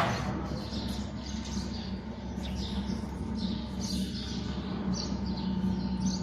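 A single sharp knock at the start, as of a workstation panel being handled, then a steady low hum with scattered short high chirps.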